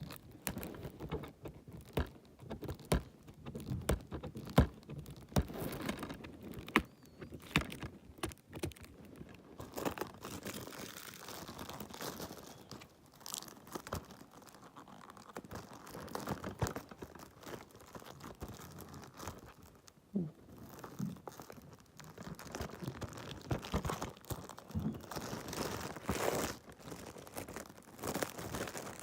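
Plastic shrink-wrap crinkling and tearing as it is peeled off a DVD case, with irregular clicks and taps from the case being handled.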